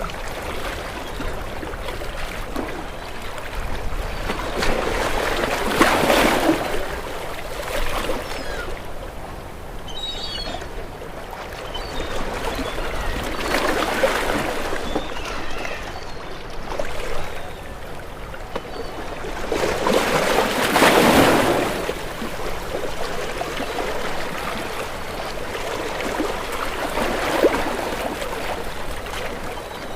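Ocean waves breaking against rocks, with three bigger waves crashing roughly every seven seconds and water washing and trickling back between them.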